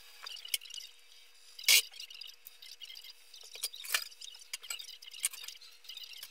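Small dog eating dry kibble from a bowl: an uneven run of crunches and clicks, with two louder clinks about two and four seconds in.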